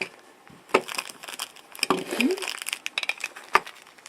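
Packaging crinkling and rustling as coins are unwrapped and handled, with a couple of sharp clicks.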